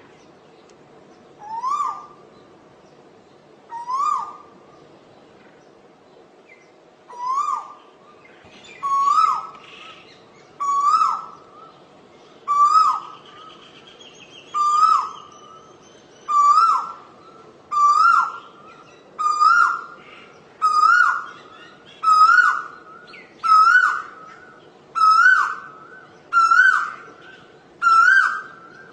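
Asian koel calling its repeated two-part 'ko-el', about sixteen calls that come faster and climb higher in pitch as the series goes on, over a faint steady background hum.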